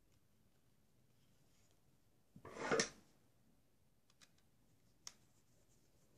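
A short scraping rasp about half a second long, then a few faint small clicks, as small laptop screws and the SSD's metal frame are handled.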